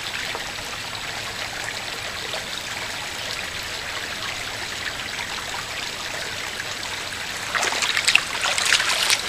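Shallow water trickling steadily as it flows across a flooded trail. Near the end come a few louder splashing steps through the water.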